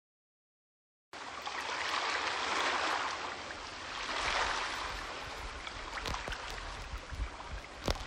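Ambience of a large public aquarium gallery: a steady rushing hiss like running water that starts abruptly about a second in and swells twice, with a few faint clicks and knocks near the end.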